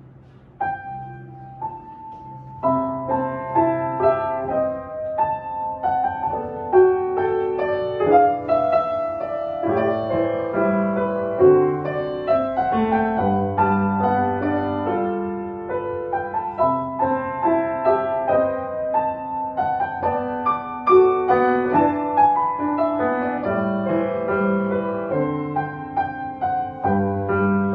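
Grand piano played solo: a few single notes at first, then both hands in a steady flow of notes with a bass line from about two and a half seconds in.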